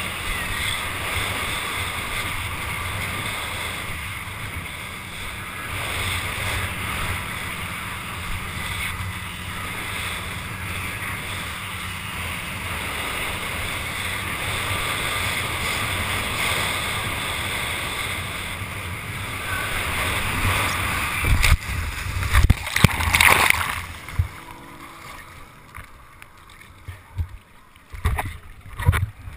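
Wind and rushing water buffeting a helmet-mounted camera as a rider is towed over a boat's wake, then a few heavy splashing impacts about two-thirds through as the rider falls. After that, quieter sloshing and gurgling with the camera bobbing at the water's surface.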